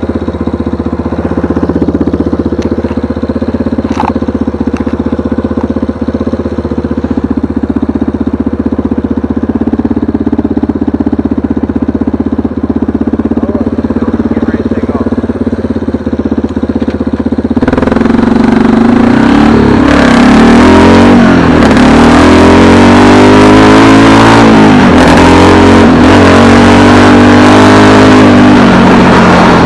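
A vehicle engine runs with a steady hum. About seventeen seconds in it gets louder, and its pitch rises and falls again and again as it revs and accelerates.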